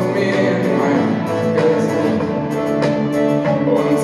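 Pop-rock band playing live with no vocals: sustained guitar and keyboard chords over drums, with repeated cymbal hits, heard in the echo of a large arena.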